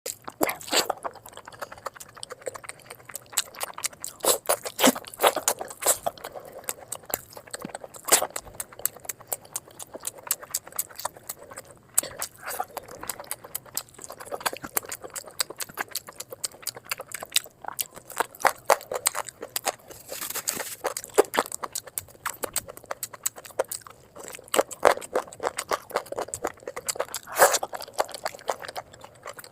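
Close-miked eating of chicken drumsticks: chewing with rapid, irregular crackly clicks and mouth smacks, and louder crunchy bites now and then.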